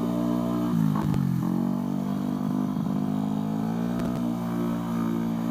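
Tuned Vespa drag-racing scooter's engine, about 200cc, running at low, steady revs while creeping through stop-and-go traffic; the pitch dips and picks back up about a second in.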